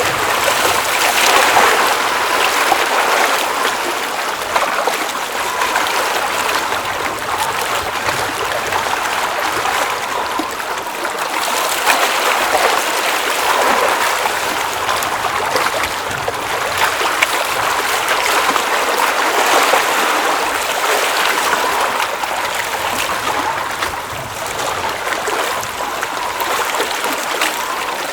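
Water at a glacial mountain lake running and splashing in a steady rush that swells and eases every few seconds.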